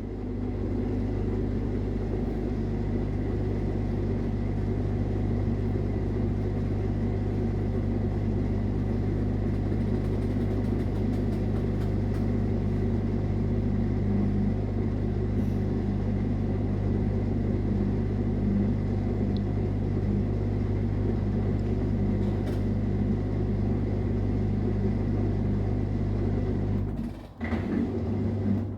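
LG smart inverter top-loading washing machine in a direct spin cycle, its drain pump running continuously while the drum turns, making a steady low hum. The sound drops out near the end.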